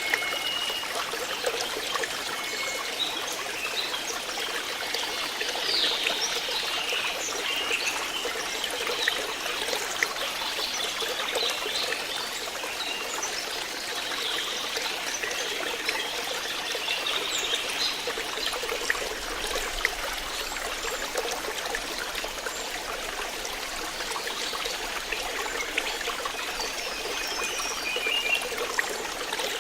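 Stream water trickling and flowing steadily, with brief high chirps over it now and then.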